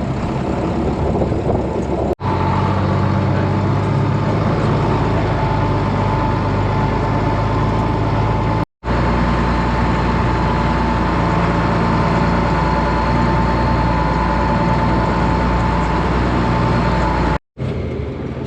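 Farm tractor engine running steadily while towing a loaded feed mixer wagon, with a steady whine above it. The sound drops out briefly three times.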